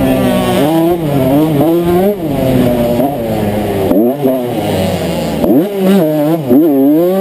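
1992 Honda CR125's single-cylinder two-stroke engine under race throttle, revving up and falling back again and again with quick drops and climbs in pitch. Wind rumbles on the microphone for the first few seconds.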